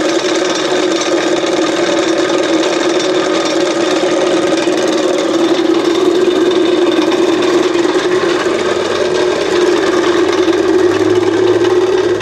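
Electric motor turning a belt-driven generator rotor, running with a steady hum that keeps one even pitch. The pitch holds and the belt stays quiet while the generator coil is shorted out: no Lenz-effect drag on the rotor. A lower hum joins about nine seconds in.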